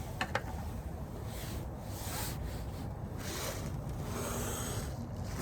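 Rubbing and rustling noise with two light clicks shortly after the start.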